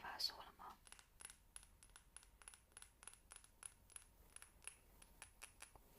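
A run of light metallic clicks, about three or four a second, starting about a second in.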